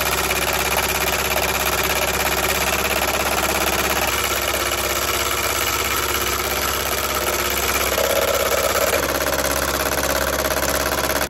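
Electric mixer running steadily at speed as it beats egg whites for meringue, stopping suddenly at the end.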